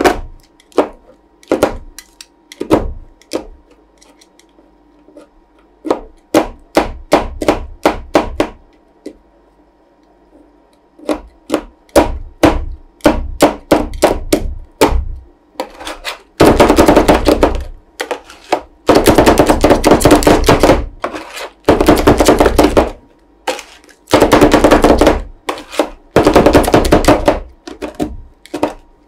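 Two metal spatulas chopping ice cream base on the steel cold plate of an Ultratec ICR 2450 roll ice cream machine: sharp metal clacks against the plate. Single strikes at a steady pace at first, a short pause about a third of the way in, then fast rattling runs of chopping in the second half.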